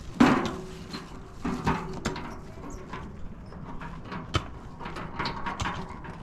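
Scattered knocks and clatters of loose stones and a metal wheelbarrow being tipped, the loudest clatter just after the start, then irregular smaller knocks.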